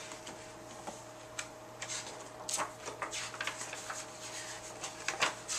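A picture book being opened and its pages turned by hand: a string of short paper rustles and soft knocks, starting about a second and a half in, over a faint steady hum.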